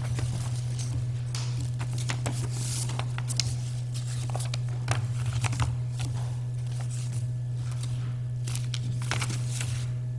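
Scattered rustling and small clicks of handling noise over a steady low hum.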